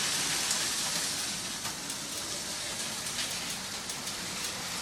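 Battery-powered Lego trains running on plastic track: a steady whirring rattle with a few faint clicks.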